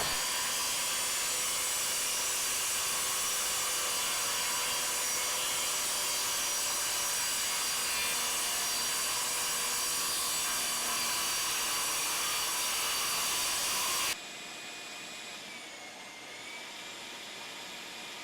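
Circular saw running and cutting through a wooden panel, a steady whine and hiss. About fourteen seconds in it drops sharply to a quieter steady sound.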